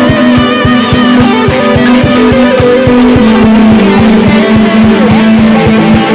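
Worship music led by guitar, with long held tones over a fast, steady low beat.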